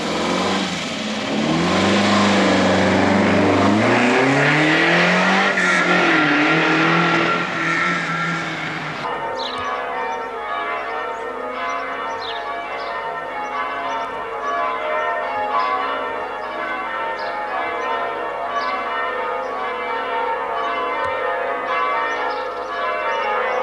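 A sports car's engine accelerating away, its pitch rising, dropping at a gear change and rising again. About nine seconds in it cuts to church bells ringing changes, many overlapping bell tones struck in a steady sequence.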